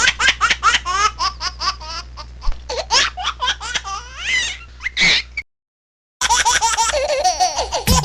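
A baby laughing hard in quick repeated bursts of giggles and squeals, which stops abruptly about five seconds in. After a short silence, a different clip starts near the end.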